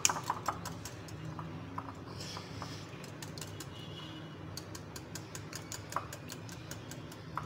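Metal wire whisk beating eggs in a glass bowl, its wires clicking rapidly against the glass.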